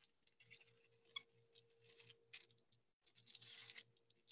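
Faint scratchy strokes of a marker drawing on the smooth plastic side of bubble wrap, in short strokes, then a longer, louder stroke about three seconds in.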